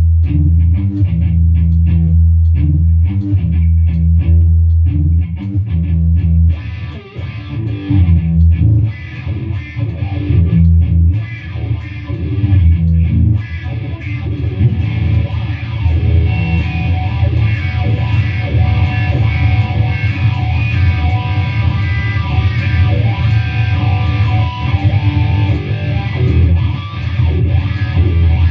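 Stratocaster-style electric guitar played along with rock music that has a strong bass line. After a short dip about seven seconds in, the music grows fuller and brighter.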